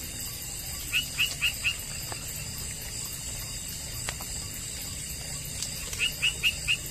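Evening chorus of insects, a steady shrill hum high in pitch, with an animal calling in runs of four short, quick notes, heard twice: about a second in and again about six seconds in.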